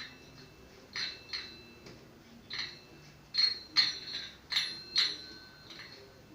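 Hard metallic clinks and taps, about nine at irregular intervals, each with a brief ringing, as the washing-machine hose's coupling is fitted onto the tap.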